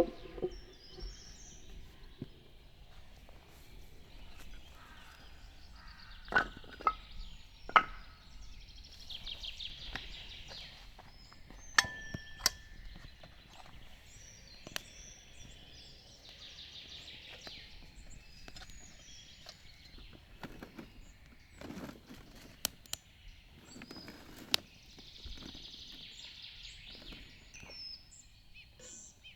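Scattered knocks, thunks and clinks from handling gear in outdoor cooking preparation. A songbird sings a short high phrase every several seconds.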